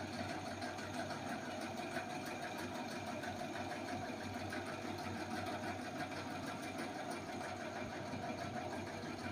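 Steady hum of a small electric motor, even in level, with a fast fine rattle in it.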